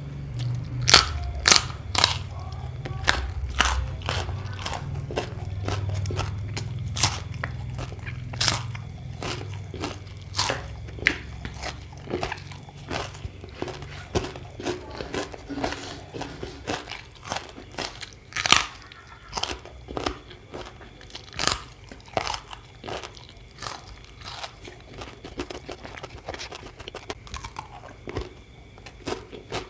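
Close-up crunching and chewing of crisp food, raw vegetables and crackers, with many sharp bites at irregular intervals.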